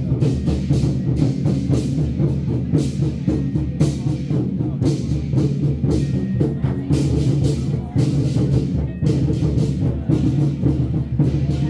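Loud temple-procession music: drums and clashing cymbals keep a steady beat over sustained low tones.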